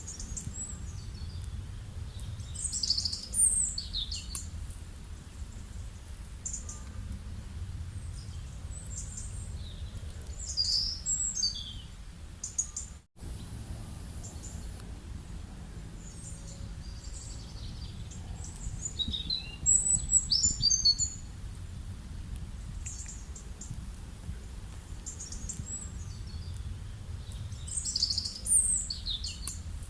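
Birds singing: a high, chirping phrase that comes back about every eight seconds, with shorter scattered calls between, over a steady low rumble. The sound drops out for a moment a little before halfway.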